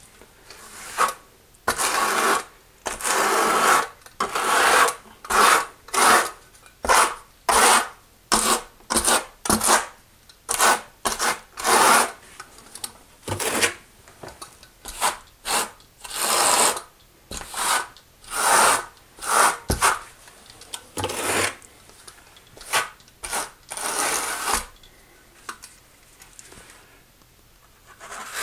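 Steel notched trowel scraping thinset mortar across the back wall of a shower niche, combing ridged lines into it for a glass mosaic tile. Repeated rasping strokes about one or two a second, which stop for the last few seconds.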